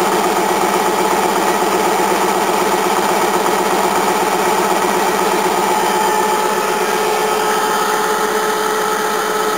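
Old 1950s-era belt-driven piston air compressor running steadily and pumping air into its tank, with a fast, even pulsing from the pump strokes. It runs very quiet for its age.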